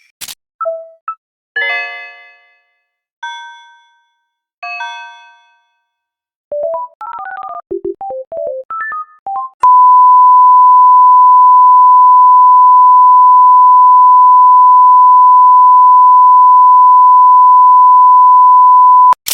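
Samsung Galaxy Mini ringtones and alert tones playing in turn: a couple of short beeps, three electronic chime notes that ring and fade about a second and a half apart, and a quick run of synthesized notes. Then a loud, steady single-pitched beep is held for about nine seconds and cuts off suddenly.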